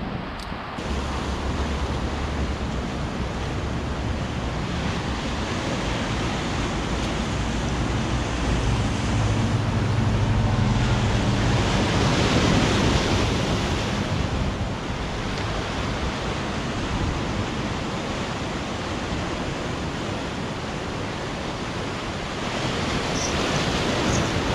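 Sea waves surging and washing against shore rocks, with wind on the microphone. The surge is loudest about halfway through and swells again near the end, and a low steady hum runs under the first half.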